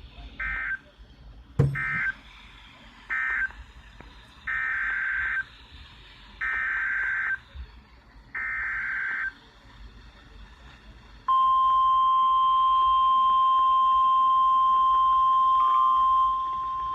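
NOAA Weather Radio Emergency Alert System signalling: three short bursts of SAME digital data tones marking the end of one message, then three longer SAME header bursts for the next alert, then the steady 1050 Hz weather radio alert tone from about eleven seconds in. A sharp click comes about a second and a half in, and the alert tone drops in level near the end.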